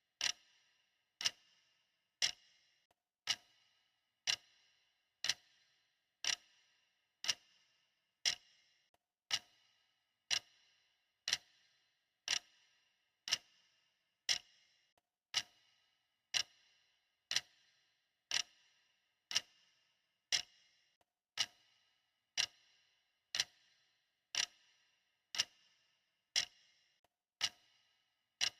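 Clock ticking steadily, about one sharp tick a second, each with a brief ring.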